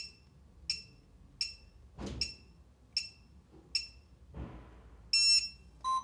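Fortress RFID touch keypad beeping at each key press: six short beeps about three-quarters of a second apart as a six-digit code is entered, then a longer beep near the end as the lock or unlock button is pressed. Two soft thumps from handling the keypad come in between.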